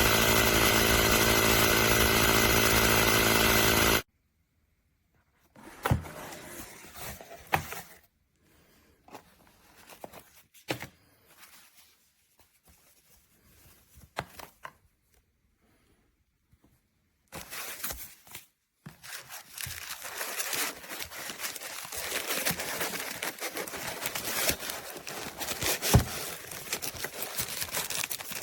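Small electric compressor motor running steadily, cutting off suddenly about four seconds in. Scattered knocks and clicks follow, then a stretch of rustling, scraping handling noise.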